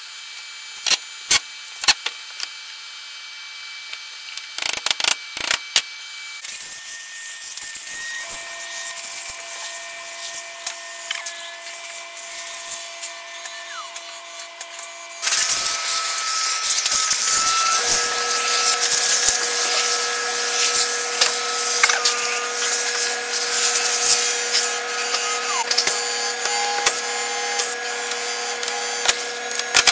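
A few knocks as aluminum stock is set and clamped on a jig, then a ShopBot CNC router's spindle running while its end mill cuts the aluminum plate. Its steady whine carries tones that shift pitch in steps as the machine moves, and the cutting gets much louder and harsher about halfway through.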